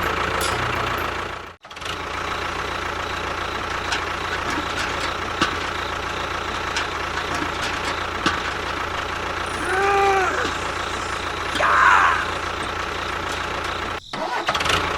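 A small engine or motor running steadily with a constant hum, broken by two brief cuts. Short rising-and-falling call-like sounds come in around two-thirds of the way through.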